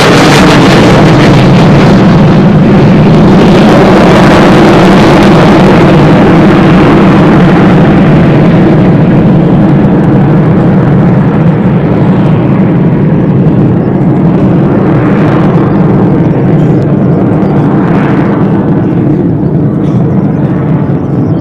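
Jet noise from a U-2S Dragon Lady's single General Electric F118 turbofan as the plane flies away after passing overhead. It is very loud, and its high hiss fades over the first several seconds. That leaves a low rumble that slowly gets quieter near the end.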